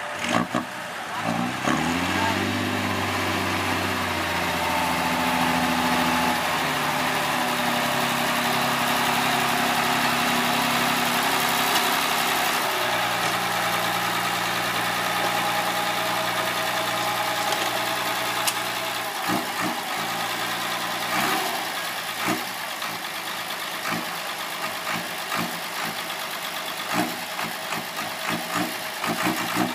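Six-wheel dump truck's diesel engine revving up and holding at raised revs to drive the tipper hoist, its pitch stepping down about twelve seconds in as the bed rises. In the last third, the load of soil and rocks slides off the tilted bed with irregular clattering and knocking of stones.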